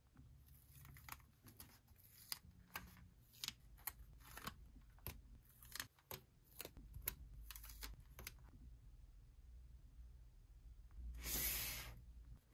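Paper stickers being peeled off a backing sheet and pressed onto an activity-book page: a run of short, sharp crackles and taps. Near the end comes a louder, longer rustle.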